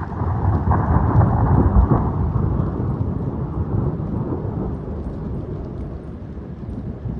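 Thunder rolling: a low rumble that swells over the first two seconds, then slowly dies away.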